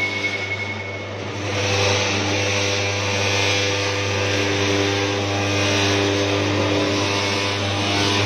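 Ribbon mixer driven by a 3 HP electric motor running steadily: a low hum with several steady tones. A louder rushing whir joins about a second and a half in.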